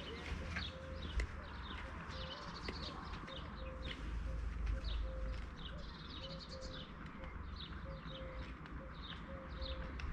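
Birds chirping: many short, high calls in quick succession, with a short low note repeated every second or so and a steady low rumble underneath.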